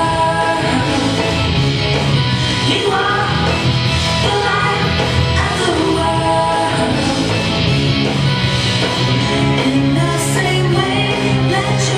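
A recorded song with singing over an upbeat band backing, playing loud and steady.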